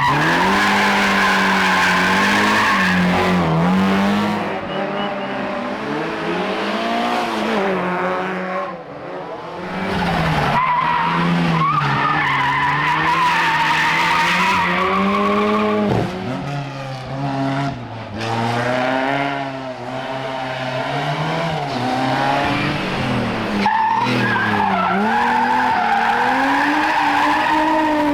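Rally car engines revving hard on a special stage. The pitch climbs and falls again and again through gear changes, and the engines pull hard once more after short throttle lifts.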